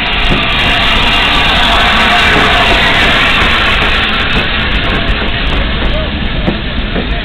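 Peppercorn A1 class Pacific steam locomotive 60163 Tornado and its coaches rolling past at close range as the train pulls into a station: loud, steady rumble and rush of wheels and running gear, easing slightly near the end.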